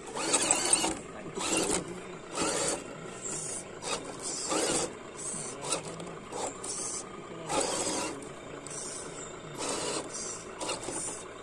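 RC rock crawler's electric motor and gearbox whirring in short, irregular stop-start bursts as it is driven in small throttle blips up a rock face.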